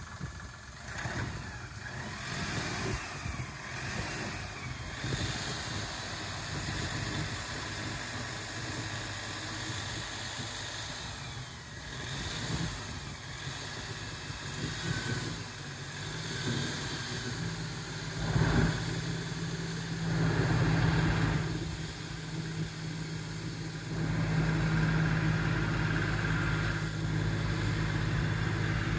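An LS compact utility tractor's diesel engine running as the tractor drives, a steady engine hum that grows louder in the last few seconds, with a brief knock about two thirds of the way through.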